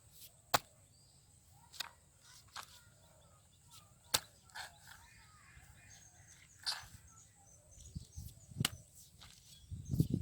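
A series of irregular sharp clicks and snaps, about eight over ten seconds, with low handling rumbles near the end.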